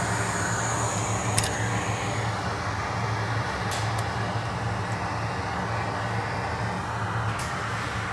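Bench fume extractor fan running with a steady hum, with a few light clicks as a laptop logic board and a small USB power meter are handled on the work mat.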